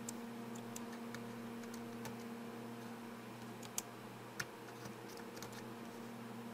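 Keys of a freshly replaced HP EliteBook 8770W laptop keyboard being typed to test them: scattered soft key clicks, with two sharper ones around the middle, over a steady low hum.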